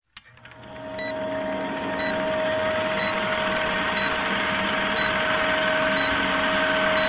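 Film projector running sound effect for a countdown leader: a steady whir with fast clatter and hiss, and a short beep about once a second as the numbers count down.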